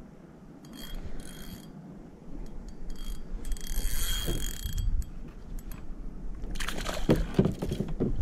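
Fishing reel's drag ratcheting in short buzzing runs as a hooked koheru pulls line against it. Near the end comes a dense burst of knocks and rattles as the fish is brought in.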